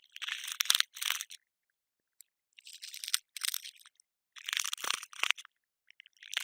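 Cockroach crawling: bursts of dry, crackly rustling, each about a second long, separated by short silent gaps.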